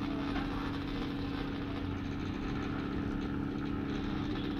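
Homemade repstrap 3D printer running while it prints: a steady mechanical hum with one constant tone through it.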